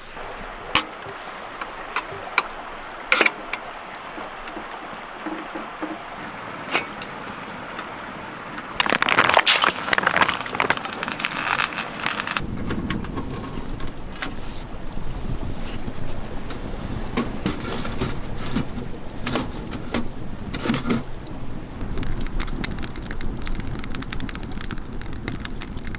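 Scattered clicks and clinks of handling, with a louder burst of rustling about nine seconds in. From about twelve seconds a wood-burning tent stove runs with a steady low rumble and frequent crackling of burning logs.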